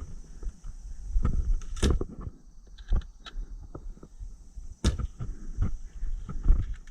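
Airsoft player moving at close quarters: irregular footsteps and gear rustling, with two sharp cracks about two and five seconds in, over a faint steady high hiss.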